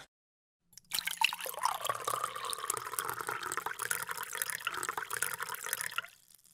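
Running water with small splashes and drips, starting about a second in and fading out near the end.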